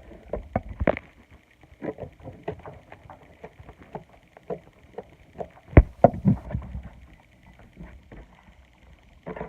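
Slime being squeezed and poked by hand, giving irregular sticky clicks and small pops, with the loudest pop about six seconds in.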